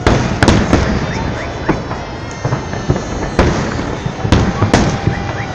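Fireworks shells bursting overhead: a run of loud, sharp bangs, a few in the first second and more near the end, over a continuous crackle of smaller bursts.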